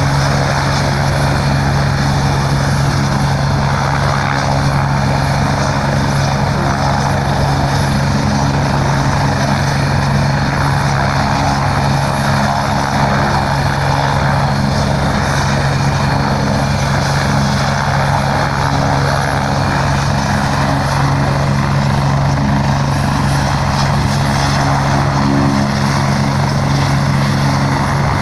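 Medical helicopter running steadily with its engine and rotor at a constant pitch and level, with no rise or fall.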